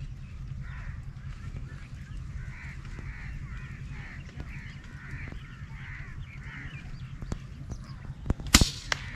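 Birds give a run of short, repeated calls over a steady low rumble. A single loud gunshot cracks out near the end.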